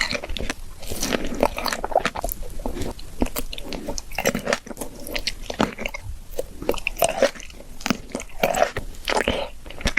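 Close-miked biting and chewing of fresh fruit: a dense run of sharp clicks from bites mixed with wetter chewing sounds, going on without a break.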